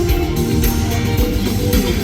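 Band music with guitar and a drum kit playing a song.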